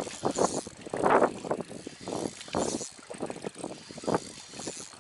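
Spinning reel cranking and clicking in uneven bursts under the pull of a hooked fish, which the angler takes for a carp.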